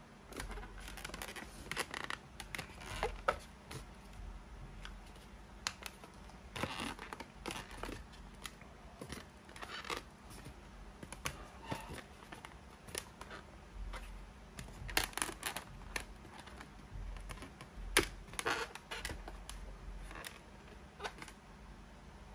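Hands handling and rubbing an inflated latex balloon animal, giving irregular short rubbing and scraping noises with a few sharp clicks.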